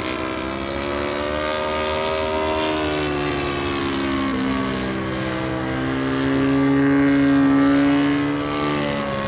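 A 1:5 scale SAI KZ II radio-controlled model aircraft in flight, its engine and propeller droning steadily. The pitch slides up and down through the manoeuvres, and the sound is loudest about seven to eight seconds in.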